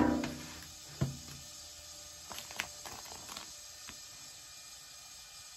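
A metal popcorn tin knocked and handled, ringing briefly from the first knock, with a second smaller knock about a second in. A few light crackles of the clear plastic vinyl transfer sheet follow as it is peeled off the tin.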